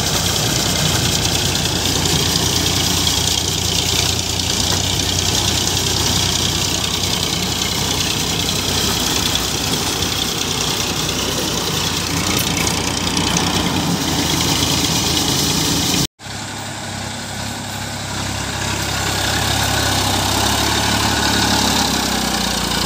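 Three-cylinder diesel tractor engines of an Eicher 551 and a Massey Ferguson 241 DI running steadily under load while dragging a land leveller. The sound drops out for a moment about two-thirds of the way through, then a single Massey Ferguson 241 DI diesel runs, growing louder near the end.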